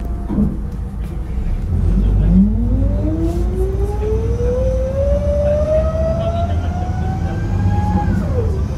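A city bus's ZF Ecomat automatic transmission whining, deafeningly loud, from inside the cabin. The whine climbs steadily in pitch as the bus accelerates, then falls away sharply about eight seconds in as the gearbox shifts up. The diesel engine rumbles underneath.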